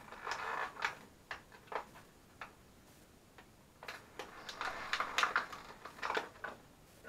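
A small cardboard box and its packing being opened and handled: irregular crinkles and clicks, busiest in the first second and again from about four to six and a half seconds in.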